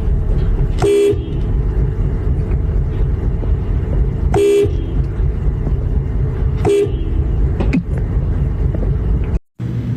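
A car horn tooting three short times, a few seconds apart, over the steady low rumble of a running vehicle engine.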